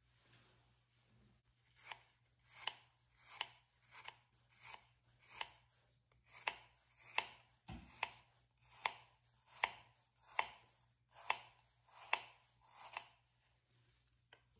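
Paring knife slicing a peeled apple thinly on a bamboo cutting board: a steady run of about fifteen cuts, roughly one every 0.7 s, starting about two seconds in.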